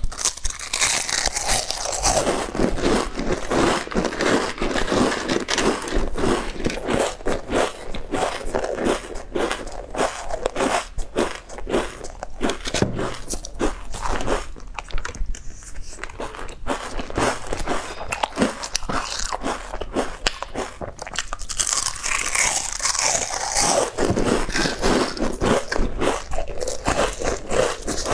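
Crunching and chewing of crinkle-cut chips, close to the mouth, bite after bite. About halfway through there is a short quieter spell of chewing.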